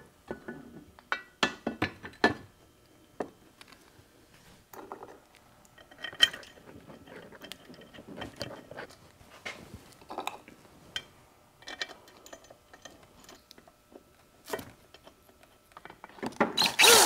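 Scattered metallic clinks and knocks as a Ford Toploader 4-speed's extension housing is fitted to the transmission case and its bolts are set by hand. Near the end a cordless drill starts up, driving the housing bolts in.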